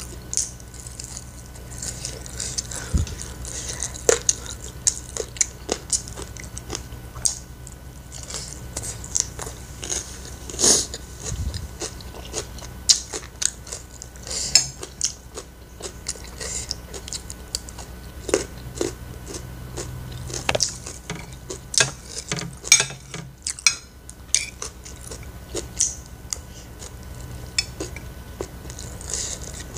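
Close-miked eating: chewing and biting food in irregular bursts of small crackles and smacks, with a metal spoon now and then clinking and scraping on a ceramic plate.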